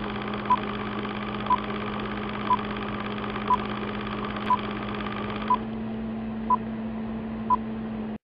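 Intro countdown sound effect in the style of an old film leader: a steady hum and hiss with a short high beep once a second, nine beeps in all. The hiss thins out about halfway through while the hum carries on.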